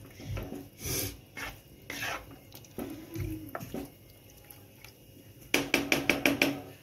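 Wooden spatula stirring marinated chicken in a nonstick kadai, with scattered scrapes and knocks against the pan, then a quick run of about ten sharp knocks a little before the end.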